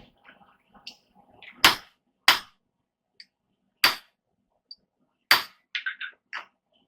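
Hammer blows on hot steel at the anvil, driving a piece of round bar in to deepen the fullered depressions. There are four sharp, loud strikes spaced unevenly, followed near the end by a quick run of lighter taps.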